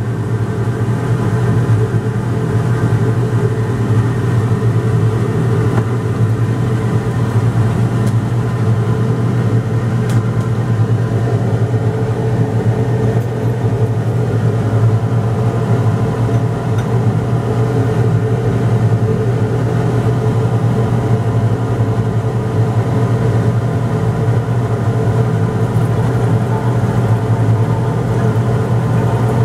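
Steady, loud hum of a ventilation fan's motor, most likely the fume hood's exhaust blower, running without change after growing slightly louder over the first couple of seconds.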